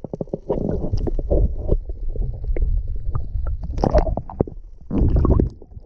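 Water heard through a camera's microphone held underwater: a muffled low rumble and gurgling, with many small clicks, swelling in a few surges, the strongest about a second in and twice more near the end.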